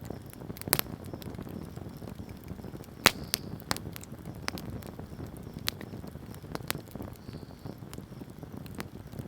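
Wood bonfire crackling: irregular sharp pops and snaps over a low, steady rush of burning, the loudest snap about three seconds in.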